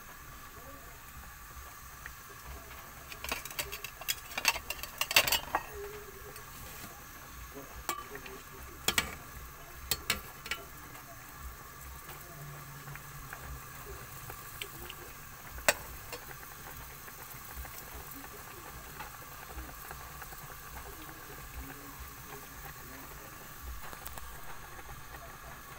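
Pot of fish soup with vegetables boiling: a steady bubbling hiss. Sharp clicks and knocks come in a cluster about three to five seconds in, a few more around ten seconds, and one single sharp click a little past the middle.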